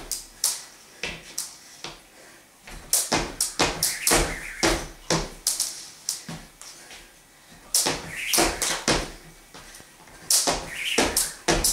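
Jump rope slapping a laminate floor and feet landing in short runs of skips, broken by pauses where the rope stops, as when it catches and the jumper restarts.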